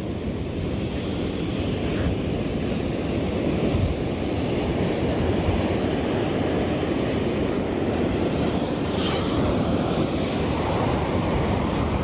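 Ocean surf breaking steadily on the beach, with wind buffeting the microphone; the wash swells over the first few seconds, then holds.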